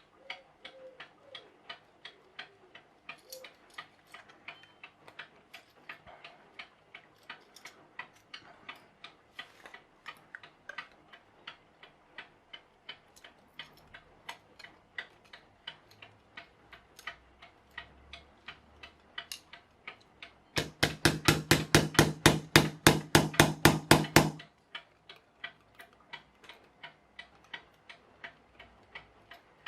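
Mechanical clock, partly rebuilt with 3D-printed parts, ticking steadily. About two-thirds of the way in, a much louder, faster run of clicks lasts about four seconds and then stops suddenly.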